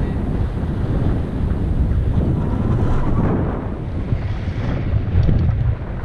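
Wind buffeting the microphone of a camera on a moving bicycle: a steady low rush of noise.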